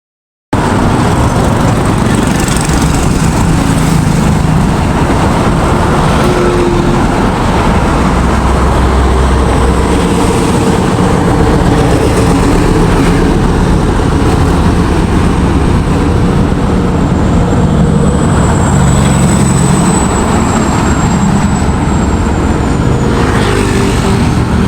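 Loud, steady motor-vehicle and road noise, starting abruptly about half a second in, with a faint high whistle for a few seconds past the middle.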